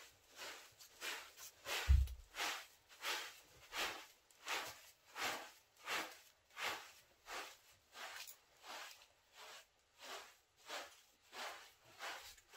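Straw broom sweeping a carpet in steady, even strokes, about three every two seconds, with one dull thump about two seconds in.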